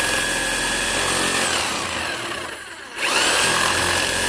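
Corded power saw cutting through a wire fence panel. Its motor whines up to speed and runs steadily, winds down about one and a half seconds in, then starts up again about three seconds in.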